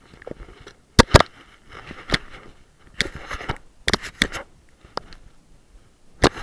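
Handling noise from a camera carried against a jacket: scratchy rubbing, broken by a series of sharp knocks, the loudest about a second in, as it bumps about while its wearer scrambles down rock.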